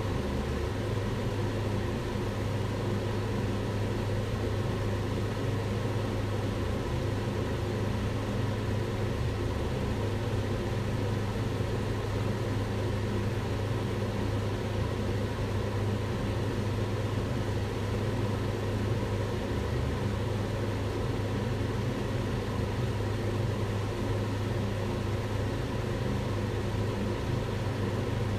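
Kitchen range hood fan running steadily: a constant rush of air over a low hum.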